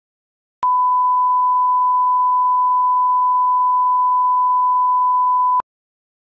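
Broadcast bars-and-tone test tone: one steady, pure beep held about five seconds, starting about half a second in and cutting off with a click near the end.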